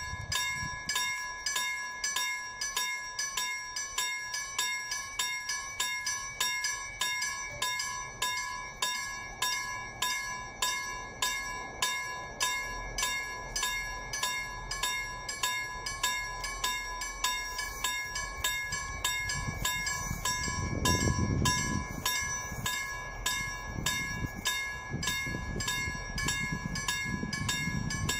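Railway level-crossing warning bell ringing in quick, even strokes, about two a second, signalling an approaching train. A low rumble swells briefly about twenty seconds in.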